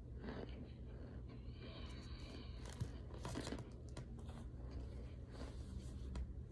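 Faint, intermittent crunching and scraping of a crushed white powder mix, a few short rasps and a longer squeaky scrape about two seconds in.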